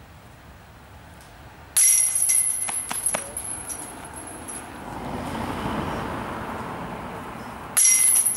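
Disc golf putts striking the metal chains of a basket twice, each a sudden loud jangling clash with a high metallic ringing that dies away within about a second, the first followed by a few lighter chain clinks.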